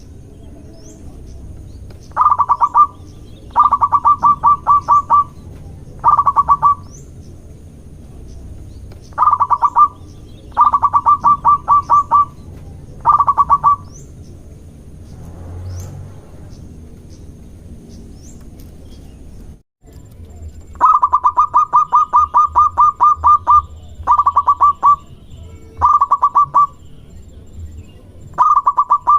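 Zebra dove (perkutut) cooing in repeated bouts of rapid staccato notes, some bouts only a few notes long and others longer runs of about a dozen. There is a pause of several seconds in the middle. Faint high chirps of small birds sound in the background.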